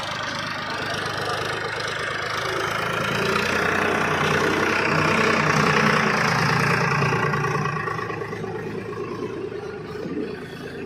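Heavy diesel engine running, growing louder to a peak about halfway through and then fading away.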